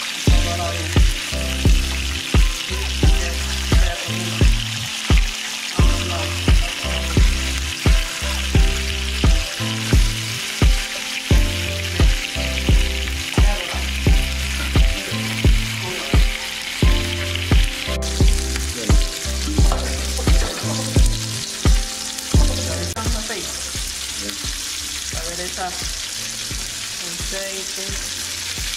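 Pieces of guinea pig (cuy) sizzling as they fry in hot oil in a frying pan. Background music with a steady beat and bass line runs under it and stops about two-thirds of the way through, leaving only the sizzle.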